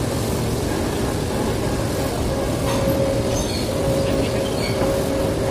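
Cement-bag loading conveyor belt running steadily, a loud machinery rumble with a steady hum that drops out briefly now and then.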